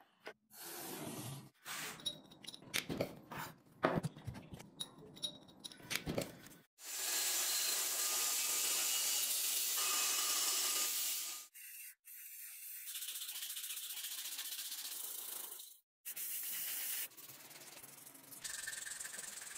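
Short bursts of shop noise: irregular clinks and scrapes for the first few seconds, then several stretches of steady abrasive rubbing as a cast brass sword guard is worked by hand.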